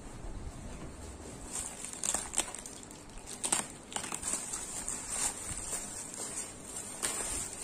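Thin black plastic bag wrapped around a parcel crinkling and crackling as hands tear it open, in irregular bursts of rustle from about a second and a half in.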